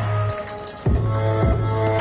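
Electronic music with a deep held bass and held synth tones; the bass cuts out for about half a second and comes back in with a hit.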